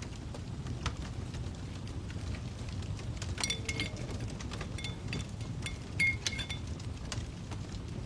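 Fire crackling steadily with faint scattered pops, and a cluster of light ringing glass clinks in the middle, the loudest about six seconds in.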